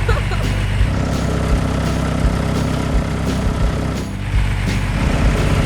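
Heavy machinery's diesel engine running steadily, with low thuds now and then.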